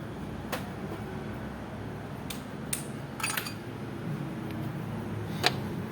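Metal hand tools clinking against metal a handful of times, sharp separate clinks with a short cluster a little past the middle, over a steady low hum.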